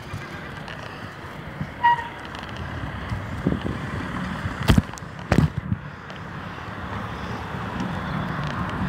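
Bicycle being ridden over a rough, rocky surface: steady road and tyre noise, a brief squeak about two seconds in, and two sharp knocks a little past halfway as the bike jolts.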